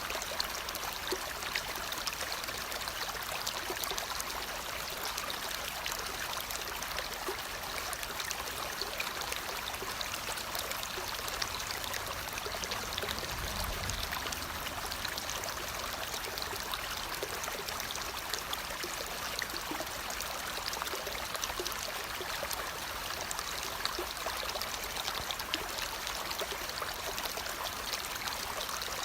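Steady running water, like a flowing stream, with small scattered ticks over it.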